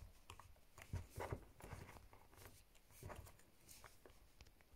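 Faint, scattered soft taps and rubbing of fingertips pressing slime flat against a wooden tabletop, with a small cluster of taps about a second in.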